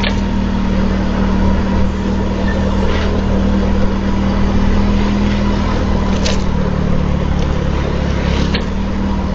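Motor scooter engine running steadily at cruising speed, with road and wind noise, and a few faint ticks.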